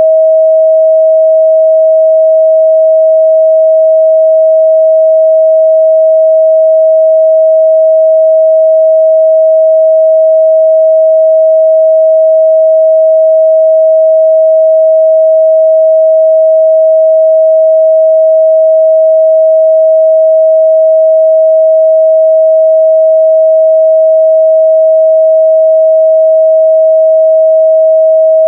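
Continuous 638 Hz sine-wave test tone, a single steady pure pitch held at a constant level.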